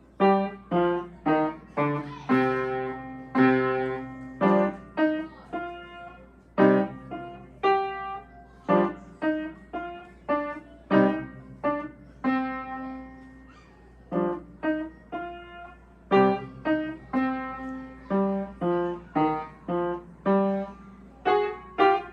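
Piano playing a short solo piece: detached struck notes and chords, some deep in the bass, in short phrases with brief pauses between them.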